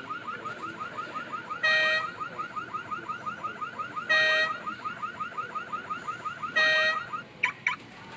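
Electronic alarm of a Finn McMissile talking alarm clock: a rapid warbling chirp about five times a second, broken three times by a louder steady beep every two and a half seconds, ending with two short chirps.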